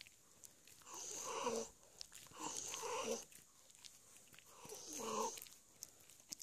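Small dog growling three times over its chewing bone, each growl lasting well under a second, about one and a half to two and a half seconds apart.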